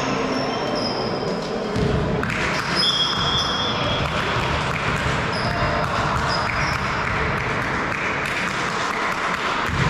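Echoing sports-hall sound during a volleyball match: short high squeaks of sneakers on the court floor, a ball bouncing and scattered player voices. The brightest squeak comes about three seconds in.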